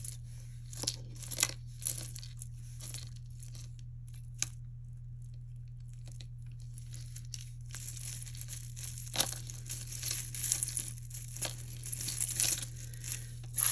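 Hands handling costume jewelry: scattered small clicks and clinks of metal pieces and beads, then from about eight seconds in a continuous crinkly rustle with more clicks as the pieces are sorted.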